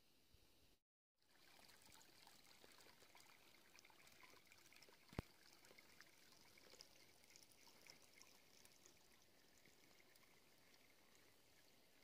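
Faint trickling of a small stream running between snowbanks, starting after a brief dropout about a second in. A single sharp click sounds about five seconds in.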